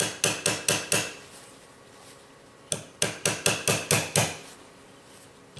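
Small hammer tapping a pin into an airsoft rifle's metal receiver through a paper towel: light, sharp taps about four a second, in two runs, about five in the first second, then after a pause of nearly two seconds about seven more.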